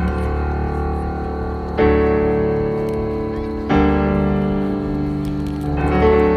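Piano playing slow, sustained chords with no voice, a new chord struck three times about two seconds apart. This is the instrumental close of a live piano ballad.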